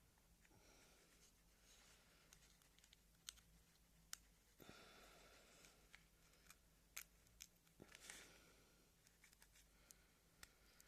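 Near silence with a few faint clicks and light handling noise: a USB charging cable being plugged into a small cable tester.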